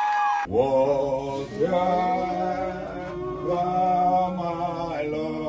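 A man singing a slow hymn in long held notes that slide between pitches. It starts suddenly about half a second in, after a held tone cuts off.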